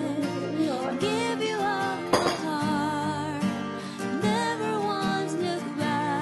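Background music: a song with acoustic guitar and a singing voice carrying a wavering melody over steady chords.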